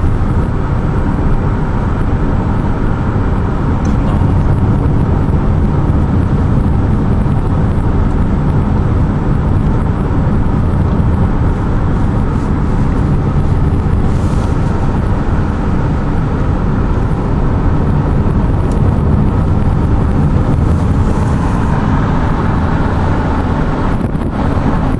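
Steady low rumble of a vehicle in motion, engine and travel noise without a break, with some wind noise over it.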